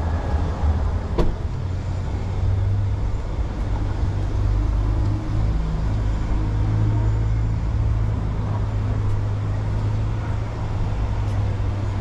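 Street traffic: a steady low engine rumble from motor vehicles, with a single sharp click about a second in.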